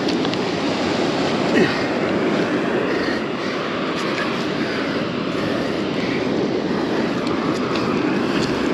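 Steady rushing wash of ocean surf on the beach, with wind on the microphone.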